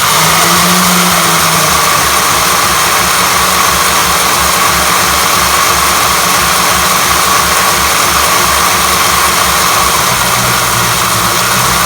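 Electric motor and gear drive of an RC snowmobile running its track steadily, a continuous whine with a fast low pulsing, while the rebuilt track is broken in.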